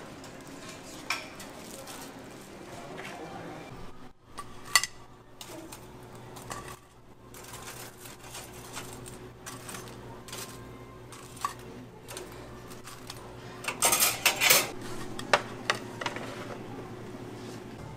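Dishes and metal utensils clinking and knocking now and then, with a quick run of loud clinks about fourteen seconds in, over a steady low hum.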